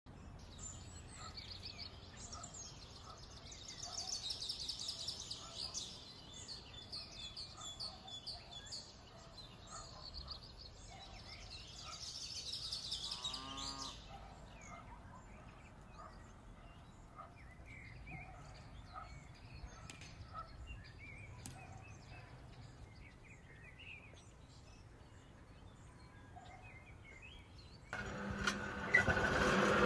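Birds singing, with dense trilling song for the first half, and a cow mooing once about halfway through. Near the end a louder steady sound with a low hum cuts in suddenly.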